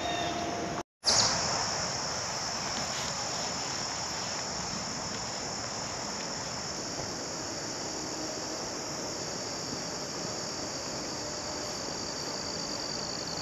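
Steady, high-pitched chorus of summer insects buzzing continuously. It starts abruptly after a brief silent gap about a second in.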